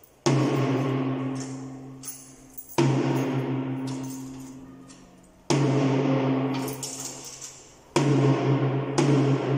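Drums of a PDP drum kit struck one stroke at a time, about every two and a half seconds, each ringing out with a low drum tone and a high wash that fade slowly, as the kit's sound is checked during tuning. Near the end the strokes come more quickly.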